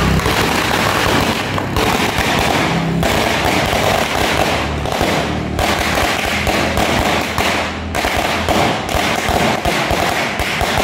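A long string of firecrackers going off in rapid, continuous crackling pops, with a few short breaks.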